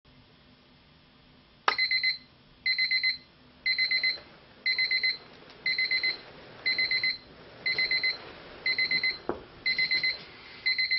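Electronic alarm clock beeping: quick groups of four high beeps, one group every second, starting after a short quiet spell.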